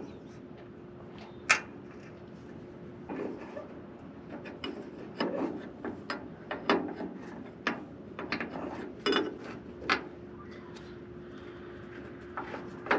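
Scattered metal clicks, knocks and scrapes of a hand tool working on a half-track's fuel filter to open it, with a sharp knock about a second and a half in.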